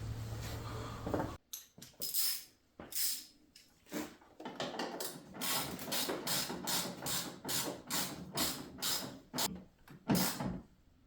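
Hand ratchet tightening a battery cable nut on a stud, a series of short clicking strokes that get quicker toward the end. A steady low hum cuts off about a second in.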